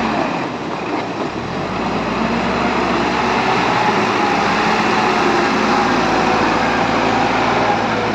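Diesel engine of a Bull 4×4 backhoe loader running loudly and steadily while the machine works, with faint steady whining tones over the engine noise.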